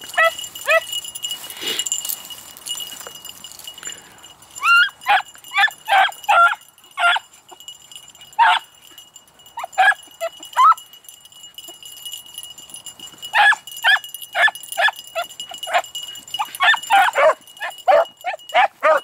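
A pack of beagles barking and yelping in quick runs of short, high calls, several voices overlapping near the end, with pauses of a second or two between runs: the cry of hounds working a scent through brush.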